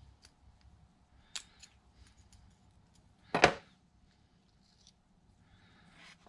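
Small metal tools and reel parts clicking on a plastic tray: a few light clicks, then one sharp, louder clack about three and a half seconds in as a pair of tweezers is set down on the tray.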